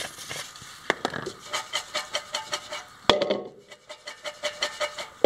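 Popcorn being tossed in a metal stock pot to mix in salt: a quick rhythmic rustle and rattle of the popped kernels against the pot wall, about five shakes a second, with a sharp knock of the pot about three seconds in before the shaking resumes.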